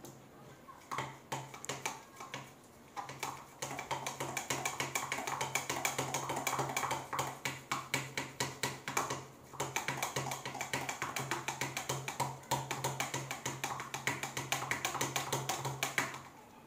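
Rapid, repeated clicking and tapping of a utensil stirring a slime mixture in a bowl, several strokes a second, with a short pause about nine seconds in. A steady low hum runs underneath.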